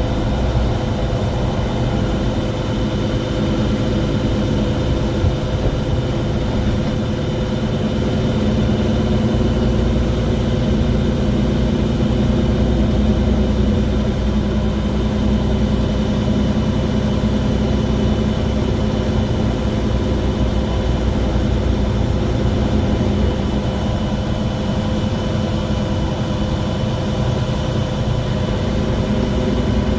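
Mercedes-Benz Citaro G articulated bus making a loud, strange noise: a steady whine of several held tones over a low engine drone, unchanging throughout.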